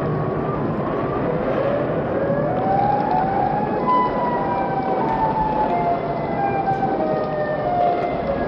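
Civil defense air-raid siren winding up in pitch over the first few seconds, then slowly falling, over a steady noise.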